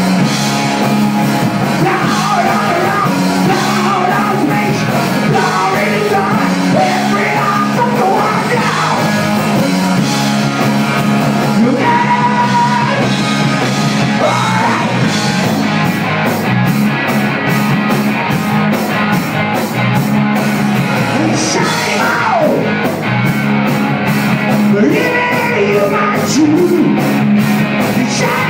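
Live rock band playing: electric guitars, bass and drums, with a sung vocal, loud and dense throughout.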